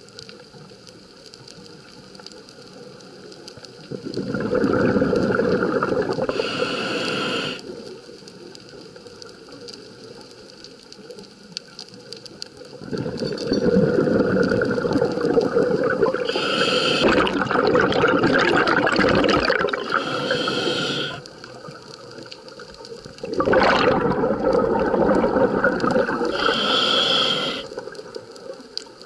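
Scuba diver's regulator breathing, heard through an underwater camera housing: three long bursts of exhaled bubbles, each several seconds long, with quieter stretches between breaths.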